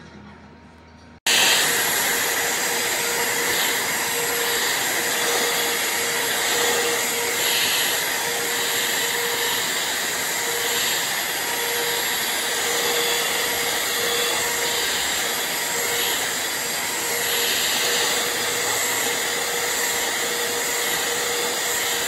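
Handheld vacuum cleaner running steadily at full suction, a constant whine and hiss with a fixed hum under it and brief swells in the hiss every second or two. It cuts in suddenly about a second in.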